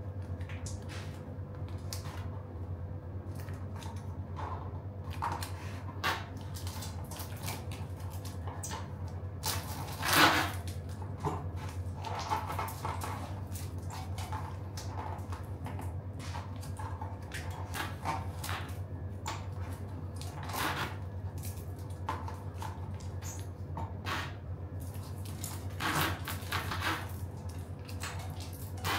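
Red plastic backing film of tubular gluing tape being peeled out from under a tubular tyre on a carbon rim: scattered crinkles and rustles of the film, with scuffs of the tyre against the rim, loudest about ten seconds in. A steady low hum runs underneath.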